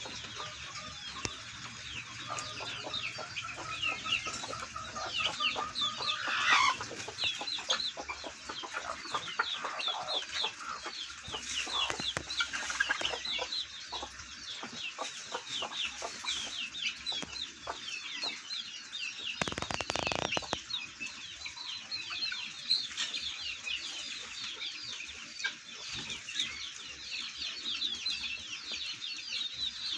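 Helmeted guineafowl calling: a rapid run of short repeated calls, with a brief rustling burst about twenty seconds in.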